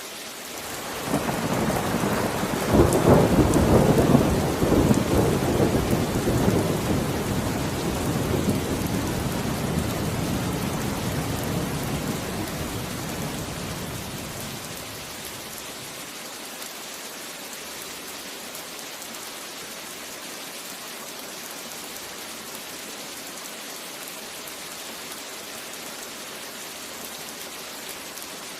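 A long rolling thunderclap over steady rain. It builds about a second in, is loudest a few seconds later, and rumbles away over the next ten seconds, leaving only the hiss of falling rain.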